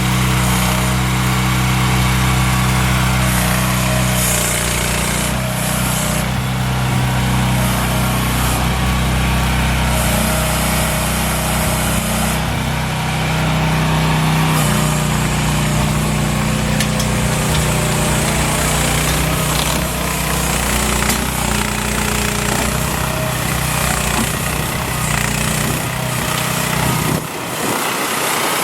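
AGT H13R mini excavator running and being worked, its small engine's note shifting as the hydraulics take load. Near the end the low engine note drops away.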